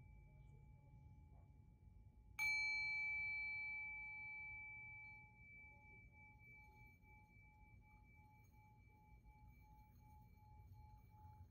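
A bell-like metal chime, typical of sound-healing instruments, struck once about two seconds in. It rings out with several high overtones that fade over a few seconds, and its low tone lingers with a slow wavering pulse.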